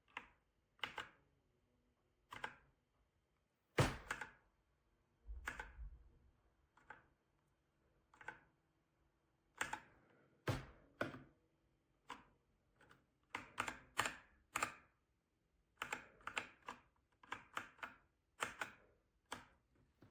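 Keys of a Redragon K617 Fizz 60% mechanical keyboard clacking as they are pressed, one at a time and in short irregular runs and pairs.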